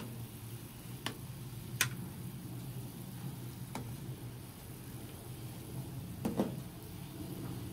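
A pot of chicken soup boiling steadily while a metal ladle skims off the foam, the ladle clicking against the aluminium pot a few times.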